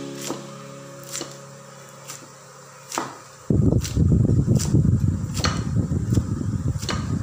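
Cleaver chopping green herbs on a wooden chopping board, sharp strikes about once a second. About halfway a loud low rumbling noise starts suddenly and continues under the chops.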